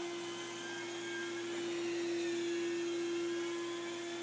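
Rotary carpet-extraction tool and its vacuum running over carpet: a steady whine at one unchanging pitch over a hiss of suction.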